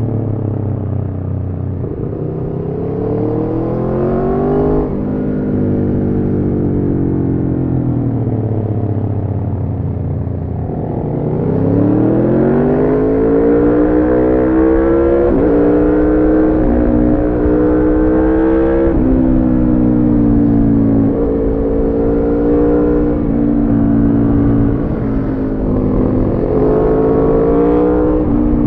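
Aprilia Tuono V4's V4 engine through an Arrow slip-on exhaust with the catalytic converter removed, under way on the road. The revs rise briefly, then fall away for several seconds. About eleven seconds in they climb hard, and the pitch then steps through several gear changes before holding a steadier pace.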